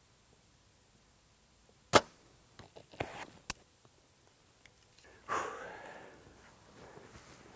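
Compound bow being shot: a sharp, loud snap of the string release about two seconds in, followed by a few lighter clicks and, about five seconds in, a longer swishing noise that fades out.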